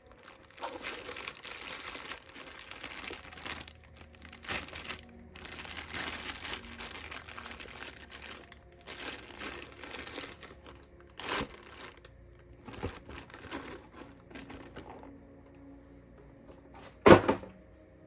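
Packaging crinkling and rustling as it is handled, in several stretches of a second or two. A few clicks follow, and a single sharp knock near the end is the loudest sound.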